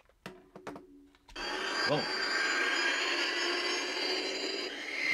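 Battery-powered toy space cruiser's electronic sound effect: a steady rushing noise with high tones over it. It starts about a second and a half in, after a few clicks.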